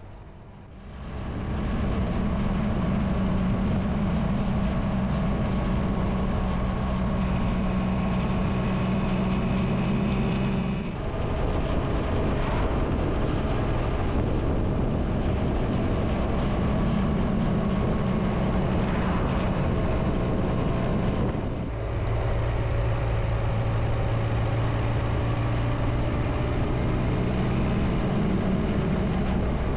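Triumph Tiger 1200 motorcycle's three-cylinder engine running steadily under way up a climbing mountain road. The sound comes in about a second in, and it dips briefly twice, where the engine note changes.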